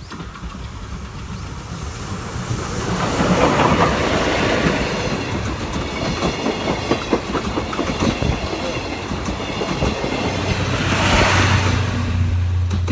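Steam-hauled excursion train passing close by, getting louder over the first few seconds, its wheels clattering over the rail joints with a quick run of sharp clicks as the cars go past.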